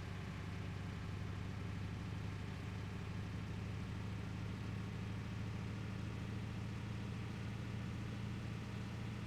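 Water truck's engine running with a steady, unchanging note.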